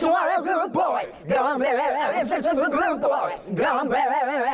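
A group of young men singing together without accompaniment, holding notes with a wide, wobbling vibrato, in short phrases broken by brief pauses about a second in and again a little past the middle.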